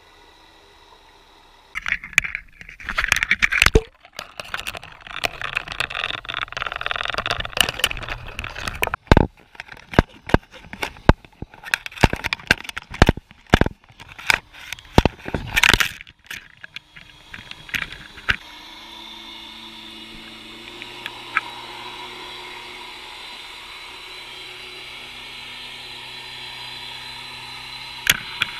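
Underwater camera housing knocking, clicking and scraping as it is jostled on its line for about fifteen seconds, then a steady drone with a low hum.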